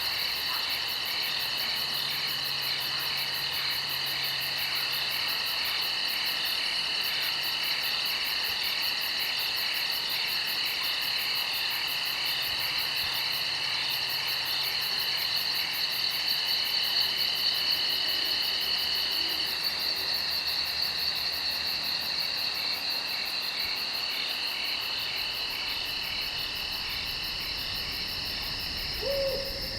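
Night insect chorus of crickets trilling steadily, several high pulsing trills layered over one another. Near the end comes a brief lower call, an owl-like hoot.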